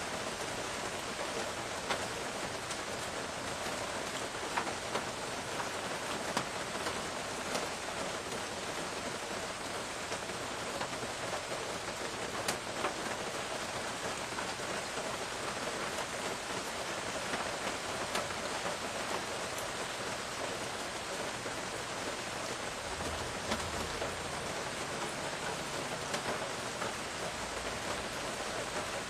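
Steady rain falling on the lawn, street and leaves, with scattered sharper drops striking close by.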